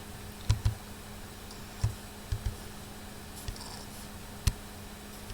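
A handful of sharp, isolated computer mouse clicks, spaced irregularly, over a faint steady hum.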